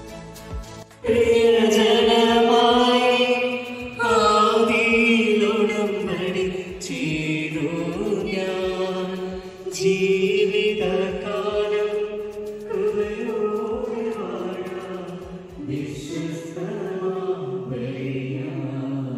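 Liturgical chant sung in long, held phrases by what sounds like a single voice, beginning about a second in.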